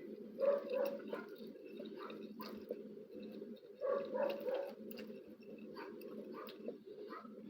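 Close-mic eating sounds of someone chewing and eating spicy instant noodles: two bursts of wet, clicky mouth noises, about half a second in and about four seconds in, over a steady low hum.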